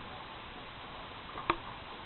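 Steady background hiss with a single sharp click about one and a half seconds in.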